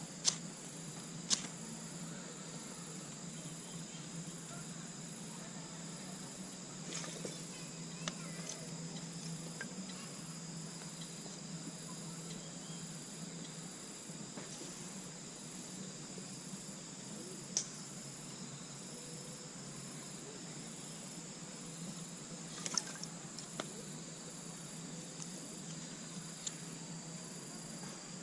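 Insects chirring steadily and high-pitched, with a few scattered sharp clicks and knocks.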